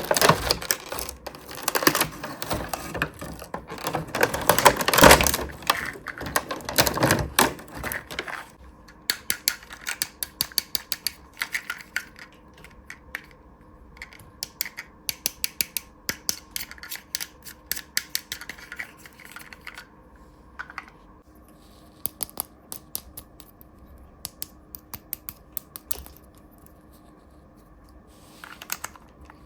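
Dense rustling and crinkling of toy packaging for about the first eight seconds, then sparse sharp clicks and taps of small plastic toy pieces being handled and set down, close up.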